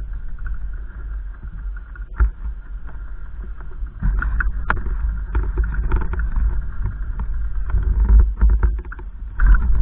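Wind buffeting the microphone: a gusty low rumble with scattered crackles, growing stronger about four seconds in.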